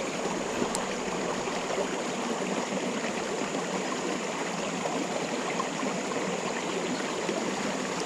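Creek water running steadily, an even rushing with no change in level.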